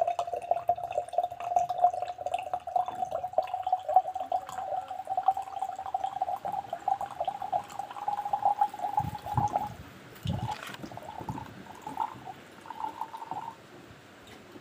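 Water spurting from a straw into a glass jar: one steady, fluttering tone that creeps slightly up in pitch, pushed out by air from a balloon stretched over a water-filled plastic bottle. It stops after about ten seconds, followed by a few knocks and faint handling sounds.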